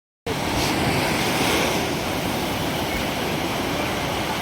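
After a split second of dead silence, a steady rushing of sea surf breaking on the beach.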